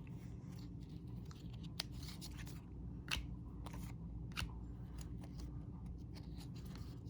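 Trading cards from a 1999 Topps Opening Day pack being handled and flipped through: scattered light clicks and rustles over a low steady hum.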